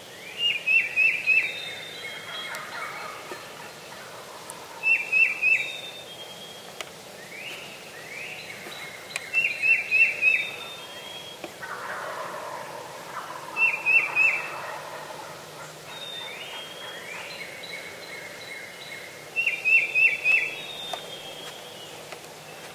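Wild turkey gobblers gobbling again and again: five loud, rattling gobbles about every four to five seconds, with fainter calls between them.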